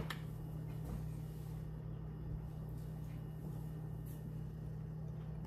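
Steady low hum of kitchen room tone, with no distinct event.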